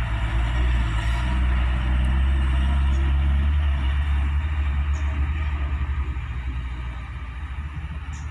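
Diesel engine of a loaded coal-hauling dump truck running with a steady low drone as it drives off along a rough dirt road, growing fainter over the last couple of seconds as it pulls away.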